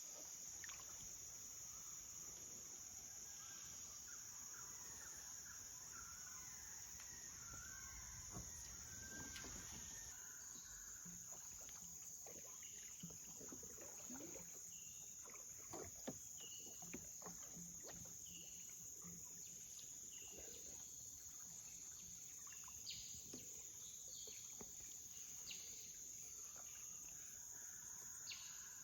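A steady, high-pitched chorus of jungle insects, faint, with scattered faint bird chirps and small clicks.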